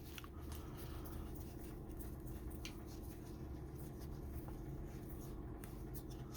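Faint handling of trading cards, sliding and flipping through a pack by hand with a few light ticks, over a steady low room hum.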